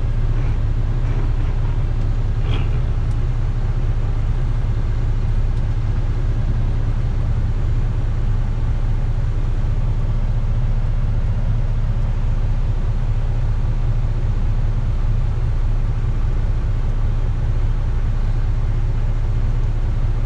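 Volvo VNL semi truck's diesel engine and drivetrain giving a steady low rumble, heard from inside the cab while the truck drives slowly downhill.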